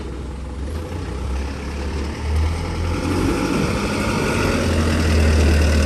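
Diesel engine of a Hino 300 light refrigerated truck pulling away at low speed, a steady low hum growing louder as it drives closer.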